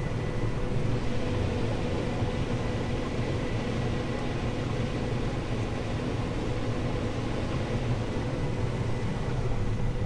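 Combine harvester picking corn, heard from inside its cab: the engine, separator and corn head running under load make a steady drone with a thin high whine.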